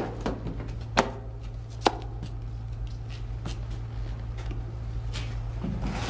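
A few sharp knocks in a small room, the loudest three about a second apart near the start and fainter ones later, over a steady low hum.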